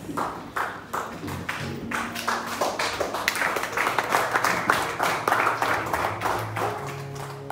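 Congregation clapping: scattered claps at first, thickening into dense clapping by about three seconds in and thinning near the end. Soft church band music with sustained low notes plays underneath.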